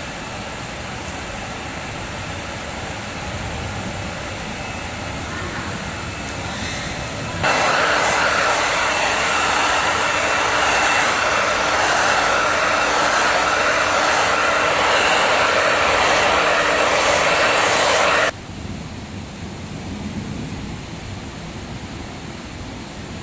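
Small electric blower motor running steadily for about eleven seconds, switching on suddenly about seven seconds in and cutting off sharply, over a steady background rush.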